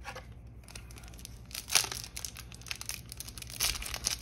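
A foil trading-card booster pack crinkling and tearing as it is pulled from the box and ripped open by hand. The crackles come in bunches, the loudest about two seconds in and another near the end.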